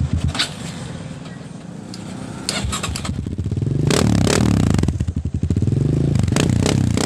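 Honda 200 cc single-cylinder motorcycle engine running through a stainless power-pipe muffler, revved up twice, each rev rising and falling back, with a few sharp clicks.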